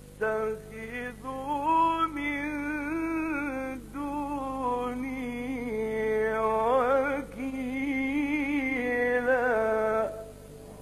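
A man's voice reciting the Quran in the melodic Egyptian mujawwad style: long held, ornamented notes that waver and glide in pitch. The phrase ends about ten seconds in.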